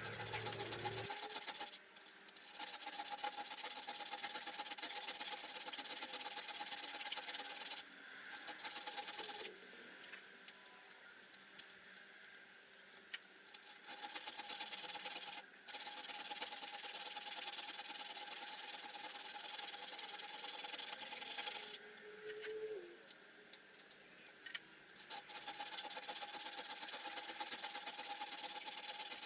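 Steel being filed by hand, a file rasping back and forth to square a drilled hole in a steel boring bar. It goes in several long spells with short pauses between them.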